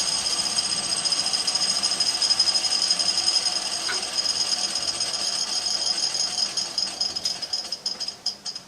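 A small machine running with a steady high-pitched whine and rattle, then winding down near the end, its clicks coming slower and slower as it stops.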